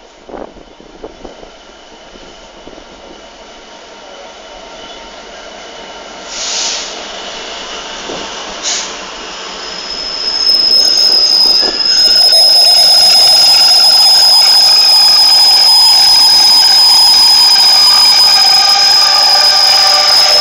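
A pair of Class 66 diesel-electric locomotives approaching and running past close by, growing steadily louder over the first dozen seconds. As they pass, a loud, steady, high-pitched squeal from the wheels sits over the engine and rail noise.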